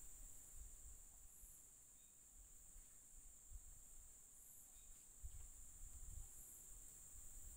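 Faint, steady high-pitched insect chorus, crickets or similar, over near silence, with a few soft low bumps about five to six seconds in.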